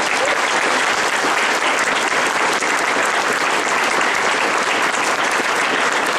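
A room full of people applauding: a dense, steady round of clapping that holds at one level throughout.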